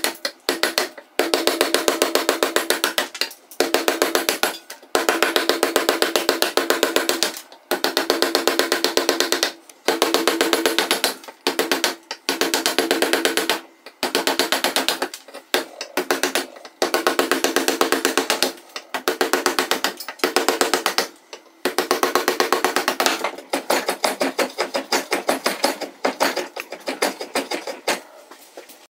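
Rapid rhythmic strokes of a hand tool, typical of sawing or rasping a knife handle. They come in runs of a second or two, broken by short pauses.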